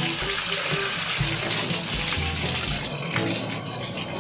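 Water spraying hard onto a truck during a wash, a steady hiss that thins out about three seconds in. Background music with a bass beat runs underneath.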